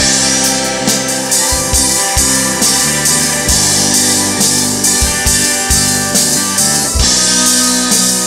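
Live band playing an instrumental break with no vocals: a keyboard solo on a Studiologic Numa Organ 2 over drum kit with a steady beat, bass and electric guitar.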